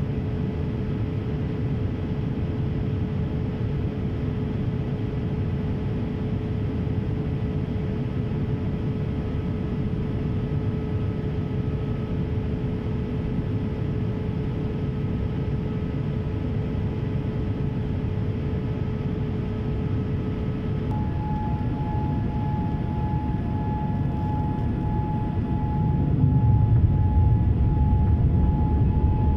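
Boeing 787-8 cabin noise in descent: a steady rush of airflow and engines with a faint whine that steps up to a higher pitch about two-thirds of the way through. Near the end the low rumble swells louder as the wing's spoilers are raised as speedbrakes.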